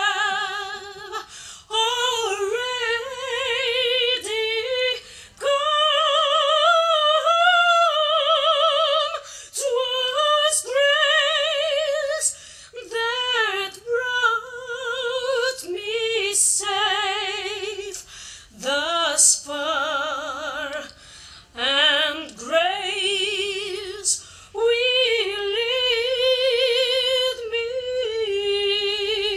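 A woman singing solo in a classical style, holding long notes with wide vibrato, phrase after phrase with short breaths between.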